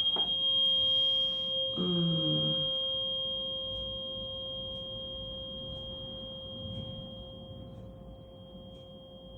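A 528 Hz tuning fork rings as a steady pure tone with a faint high overtone, fading slowly after being struck. About two seconds in, a brief low sound falling in pitch is heard under it.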